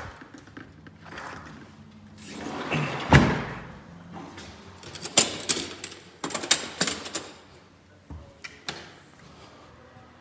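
Sliding glass patio door rolled shut, ending in a hard knock about three seconds in, followed by a run of sharp clicks and knocks.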